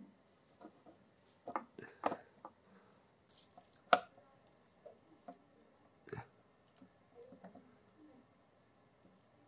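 Metal snips chopping copper wire into short strands against a plastic tray: a few sharp snips and clicks, the loudest about four seconds in. After that, only scattered faint clicks from a soldering iron tip working the plastic.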